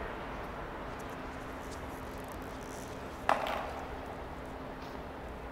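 A single sharp clack about three seconds in, with a short ringing tail, as a skateboard is set down on stone floor tiles, over a steady background hum.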